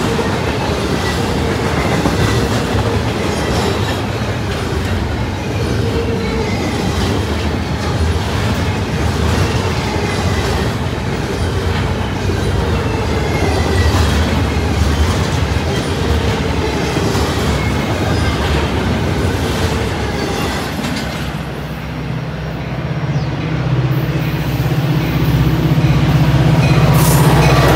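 A double-stack container freight train rolling past: a steady rumble and clatter of steel wheels on rail, with faint thin squealing tones. From about 21 seconds in, a diesel passenger locomotive's steady low engine hum takes over and grows louder as it approaches.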